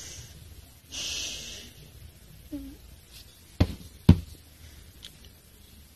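Two sharp knocks about half a second apart, the loudest sounds here, after a short burst of rustling hiss about a second in.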